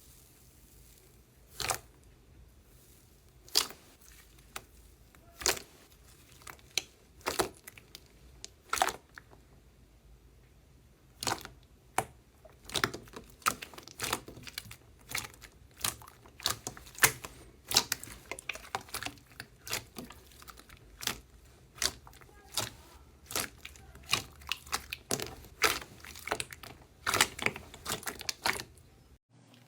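Slime being worked by hand, giving sharp, irregular crackles and pops: a few spaced out at first, then coming thick and fast from about a third of the way in.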